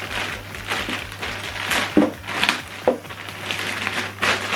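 Plastic packaging crinkling and rustling in the hands as boxed accessories are unwrapped, with a couple of light knocks.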